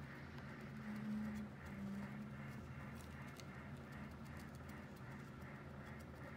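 Small electric tumbler turner motors running with a steady low hum and a regular, repeating whir. The hum swells for a second or so about a second in.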